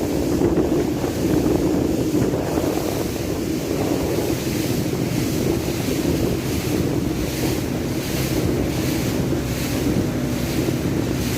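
Speedboat moving over the sea: wind buffeting the microphone over the steady rush of water and spray past the hull.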